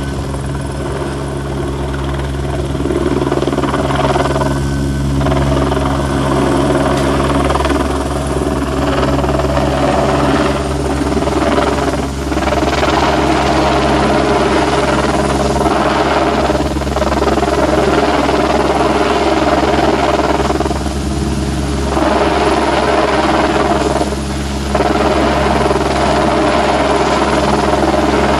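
Helicopter hovering low overhead with a sling load, its rotor and turbine running steadily and loud. It grows louder a few seconds in.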